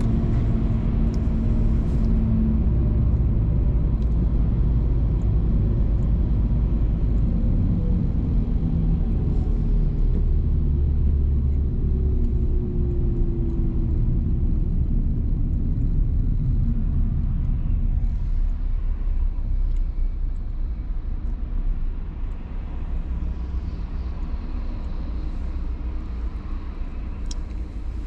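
Low, steady engine and road rumble of a car driving, heard from inside the cabin, easing off about two-thirds of the way through as the car slows in traffic.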